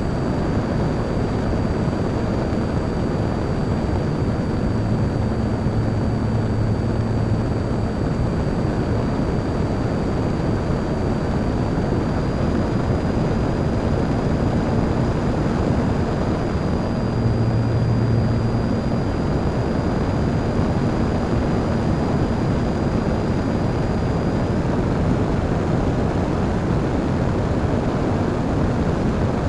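Parkzone Radian electric glider under power, heard from a camera mounted on the plane: a steady rush of air and motor noise, with a thin high whine from the electric motor and a low propeller hum that swells twice. The whine steps up slightly about midway and fades near the end.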